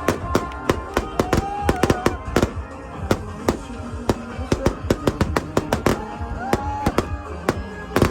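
Fireworks going off in quick, irregular bangs and crackles, several a second, over music playing with held notes.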